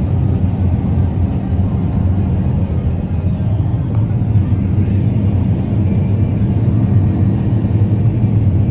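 Rotary combine harvester running steadily while harvesting soybeans, heard from the cab: a constant low drone of the engine and the turning threshing rotor, with a rushing noise above it.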